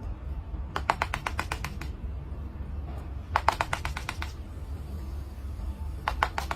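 Three bursts of rapid clicking, about ten clicks a second, each burst lasting roughly a second, over a steady low hum.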